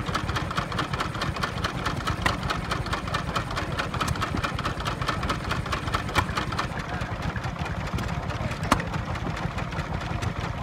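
Vintage single-cylinder stationary engines running with a steady, rapid mechanical beat. About seven seconds in the beat gives way to a sparser one from a second engine, with one sharp knock near the end.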